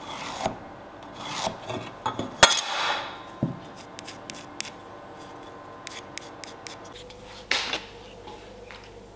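Pencil scratching across oak blocks as lines are marked against a steel rule, in several short strokes with another near the end. A sharp knock about two and a half seconds in, the loudest sound, and light ticks as the blocks and rule are handled on the wooden bench.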